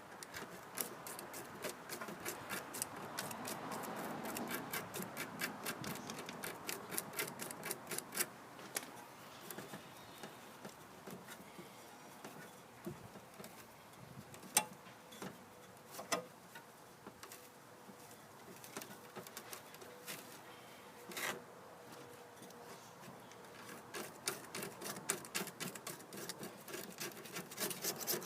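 Hand tool scraping and picking compacted debris off a lawn mower's drive axle: quick runs of short scraping strokes, several a second, in the first several seconds and again near the end, with a few single sharp clicks between.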